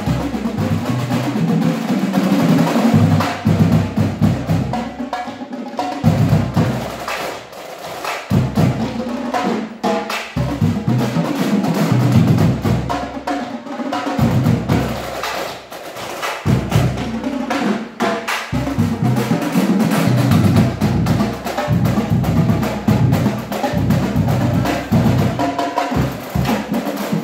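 Marching drumline playing together on snare, tenor and bass drums: a fast, loud, rhythmic pattern of stick strikes over deep bass-drum beats.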